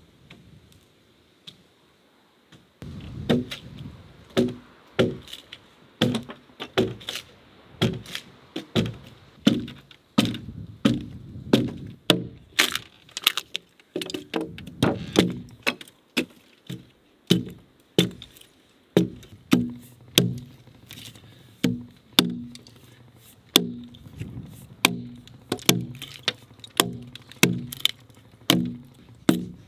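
Axe strokes biting into a freshly peeled log, about two a second, each a sharp crack with a short wooden ring, beginning about three seconds in. The axe is carving out the long groove and notch of a cabin wall log.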